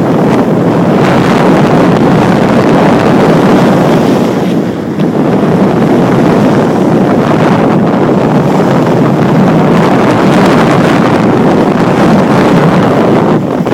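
Loud wind buffeting the microphone while riding down a ski slope, mixed with the hiss and scrape of sliding over packed snow; it eases briefly about a third of the way in.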